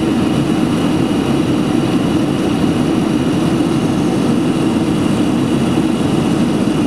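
Boeing 767-300 cabin noise in flight, heard from a seat by the wing: the turbofan engines and airflow as a loud, even drone, with a few faint steady whines above it.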